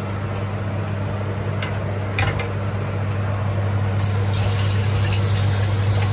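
Convection microwave oven running: a steady low hum with a hiss over it that grows louder about four seconds in.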